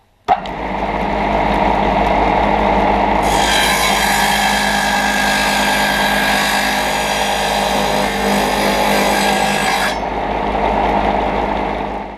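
Table-mounted circular saw switching on and spinning up to a steady run, then cutting through a wooden board from about three seconds in to about ten seconds in, which adds a loud high hiss over the motor hum. After the cut the blade runs free again.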